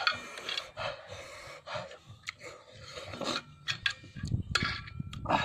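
A person eating cooked snails by hand, with breathy sucking and chewing mouth sounds and sharp, irregular clicks of snail shells knocking on a metal plate.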